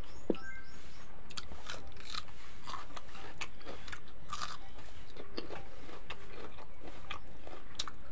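Close-up eating sounds of rice and fish curry being eaten by hand: chewing, with many short irregular mouth clicks and crackles, over a steady low background hum.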